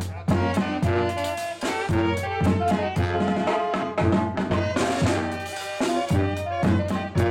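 Small band of saxophones and brass playing a melody over a steady percussive beat of about two strikes a second.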